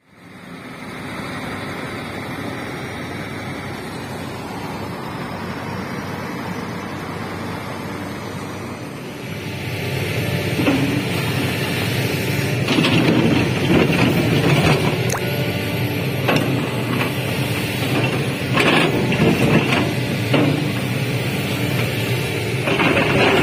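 A Sumitomo SH350LHD excavator digging rocky soil: its diesel engine working under load while the steel bucket scrapes through earth and stones, with repeated knocks and clanks of rock against the bucket. It starts as a steadier, quieter noise and becomes louder and full of impacts from about nine seconds in.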